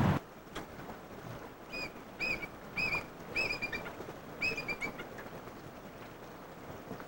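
A bird calling in a series of short, clear, high chirps from about two seconds in. The later calls break into quick runs of three or four falling notes. Faint background hiss lies beneath.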